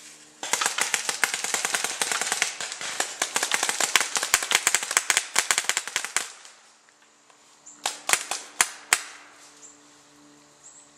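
Paintball markers firing a long, rapid volley of shots for about six seconds, then four or five more shots about eight to nine seconds in.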